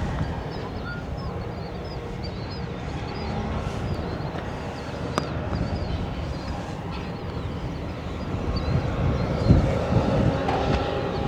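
Wind buffeting the microphone in gusts, stronger near the end, with birds chirping over and over in the background. A single sharp click about five seconds in.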